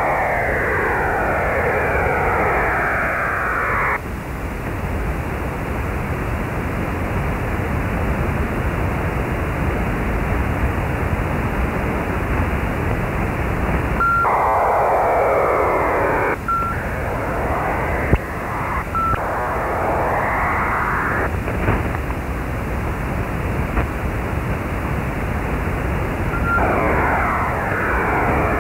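AOR AR5000 shortwave receiver in upper-sideband mode on 10.027 MHz, giving a steady band-limited hiss. Over it come about five bursts of a mystery digital data signal, each a few seconds of dense shifting tones opened by a short beep. The signal sits in a channel allocated to oceanic air traffic control, so HF aeronautical data communication was suspected, though no such operation was found on that frequency.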